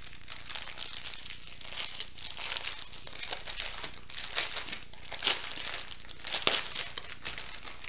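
Small plastic packets of diamond-painting resin drills crinkling while being handled, in irregular bursts, with a few louder crackles about halfway through and near the end.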